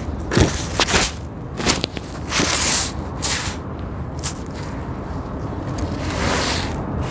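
Hands raking and sweeping through dry, gritty sand-cement mix: irregular scratchy swishes and small crunchy clicks of grit, with one longer hissing sweep about two and a half seconds in.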